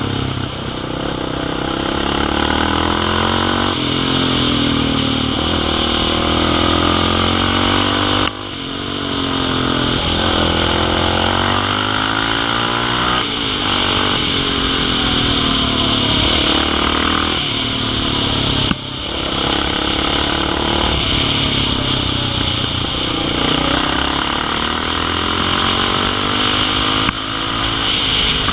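Dirt bike engine running on the road, its revs repeatedly climbing and dropping back as the rider accelerates and shifts, over a steady hiss. The sound cuts out abruptly and resumes twice, about eight and nineteen seconds in.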